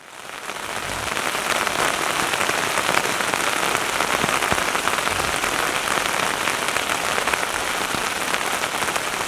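Steady rain falling, an even hiss of many fine drops that fades in over about the first second and then holds steady.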